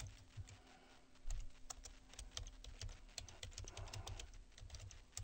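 Typing on a computer keyboard: quick, irregular key clicks, fairly faint, over a faint steady low hum.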